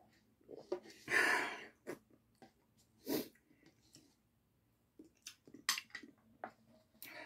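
A loud breath out about a second in, right after a swig of the last cup-noodle broth, then a shorter breath, followed by light clicks of a spoon in the cup and set down on a plate.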